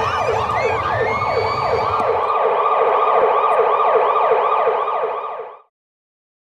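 Emergency vehicle siren in a fast yelp, about two and a half sweeps a second, over a low rumble for the first two seconds; it cuts off suddenly near the end.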